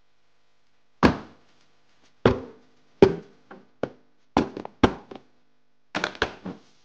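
A series of sharp knocks of hard objects, each with a short ring: three loud ones about a second apart, then quicker lighter taps and a final cluster of clattering knocks.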